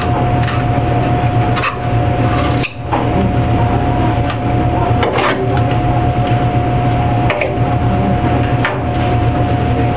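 Steady machine hum with a constant whine from commercial kitchen equipment, briefly dropping away about three seconds in. A few short scrapes and knocks of a knife working a salmon fillet on a plastic cutting board come through it.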